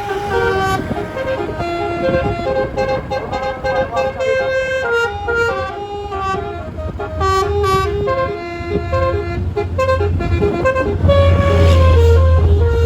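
A roof-mounted 12-note telolet bus horn playing a tune: a run of loud held horn notes that step up and down in pitch every fraction of a second. A loud low hum joins in about eleven seconds in.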